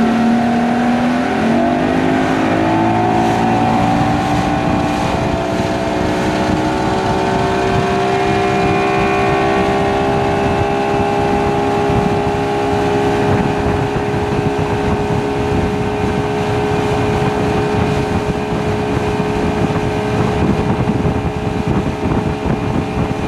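150-horsepower outboard motor pushing the boat up to speed. Its pitch climbs quickly a second or so in, keeps rising slowly for several seconds, then holds steady at cruising speed.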